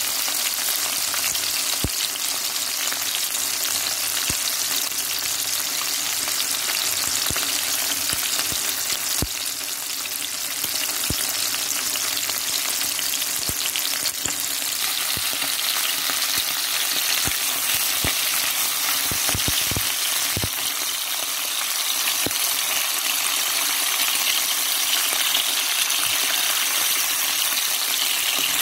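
Whole mackerel shallow-frying in hot oil: a steady sizzle with scattered crackles of spitting oil, thickest around the middle.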